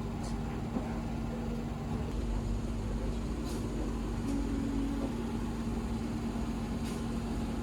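Steady low mechanical hum with one constant droning tone and a few faint clicks.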